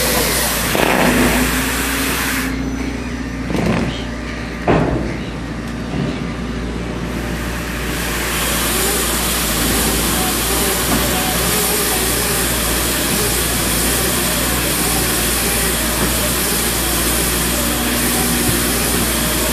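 Excavator engine and a bale-wrapping machine running steadily, with two sharp thumps about four and five seconds in.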